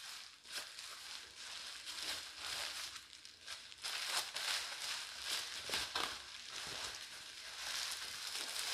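Parcel packaging crinkling and rustling in the hands as it is unwrapped, with irregular crackles throughout.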